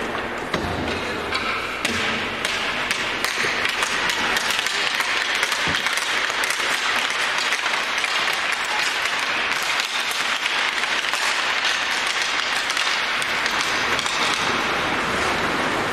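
Steady applause filling the ice rink, with many sharp taps mixed in.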